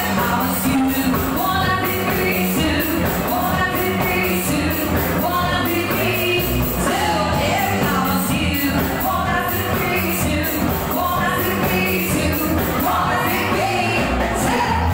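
Live band playing pop-rock: amplified singing over electric guitars, keyboard and a drum kit keeping a steady beat.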